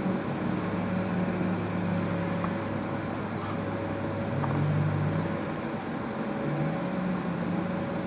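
Steady low machine drone with several held tones; the strongest tone drops slightly in pitch about halfway through and rises back near the end.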